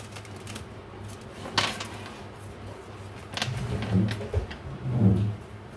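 Tarot cards being shuffled by hand over a wooden table: light rustles and clicks, with a sharp knock about one and a half seconds in. Two low, muffled swells of sound come near the end.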